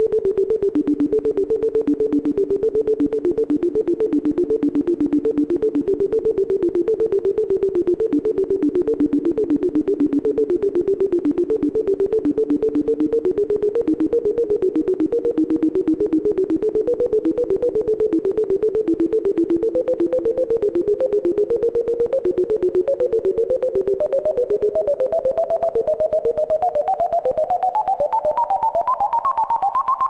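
ASM Hydrasynth digital synthesizer playing a fast, evenly pulsing pattern of notes in the middle register, climbing steadily higher in pitch over the last several seconds.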